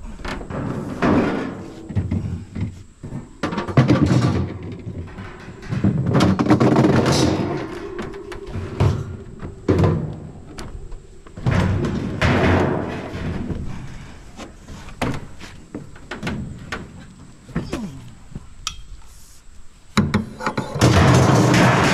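Scrap freezer and fridge cabinets being shifted and stacked in a pickup bed: irregular thuds, bangs and scraping of sheet-metal appliance bodies, the heaviest knocks about four and six seconds in.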